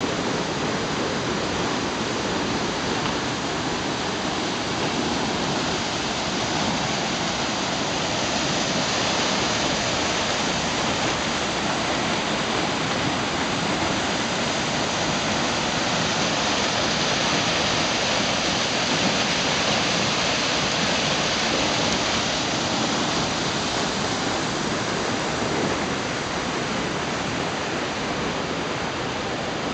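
River whitewater rushing through a narrow rock canyon below: a steady, continuous rush of water, a little louder in the middle.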